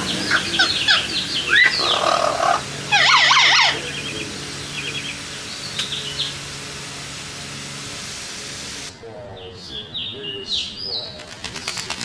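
Amazon parrots calling and squawking, with loud rising and falling calls packed into the first four seconds and fewer, quieter chirps after. A steady hiss of spray runs underneath and drops away suddenly about nine seconds in.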